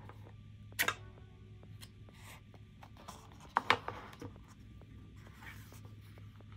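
Sharp clicks and knocks of packaging being handled during an unboxing: a pair just under a second in and a louder cluster a little before four seconds.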